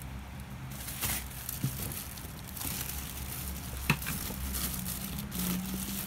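Plastic bags crinkling and rustling in irregular bursts as bagged vegetables and a plastic-wrapped loaf of bread are pushed onto a refrigerator shelf. One sharp click about four seconds in.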